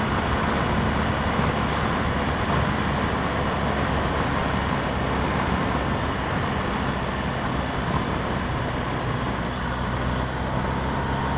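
BMW R 1250 GS boxer-twin engine running steadily at cruising speed under a steady rush of wind and road noise, heard through a microphone inside a motorcycle helmet.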